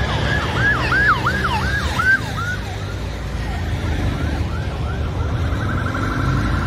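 Emergency vehicle siren sweeping sharply up and down about three times a second, strongest in the first couple of seconds and then fading, before a faster, even warble starts near the end. Traffic rumbles low beneath it.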